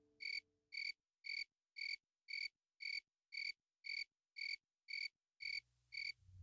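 A cricket chirping steadily: short, high, clear chirps about two a second.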